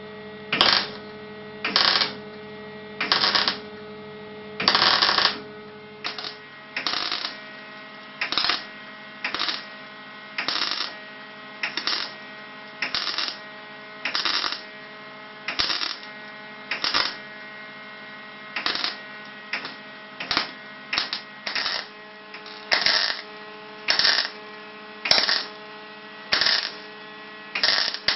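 MIG welder stitch-welding a butt joint in thin sheet metal: short crackling bursts of the arc, about one a second, over a steady hum.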